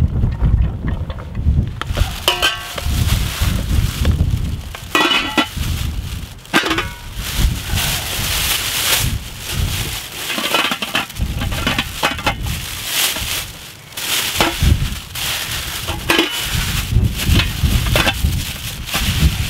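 A clear plastic oven bag crinkling and rustling in the hands as a cooking pot is slid into it and wrapped up, with gusts of wind buffeting the microphone.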